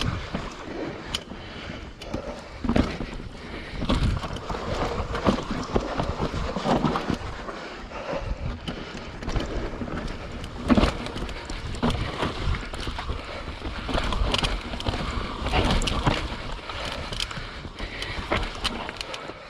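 YT Capra 29 mountain bike descending a rough trail: tyres rolling over dirt and rocks under a constant rumble, with frequent sharp knocks and rattles from the bike. The noise drops off right at the end.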